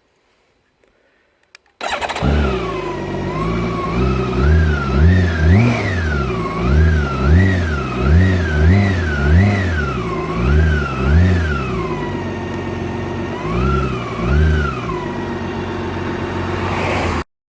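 BMW K1600 B's inline-six engine on its stock exhaust starting up about two seconds in, then idling between a string of about ten quick throttle blips, with two more blips near the end. The sound stops abruptly just before the end.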